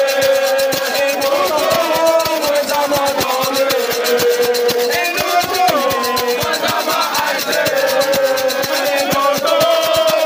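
Voices singing together on a held, slowly wavering line over fast, dense percussion: festive celebration music and singing.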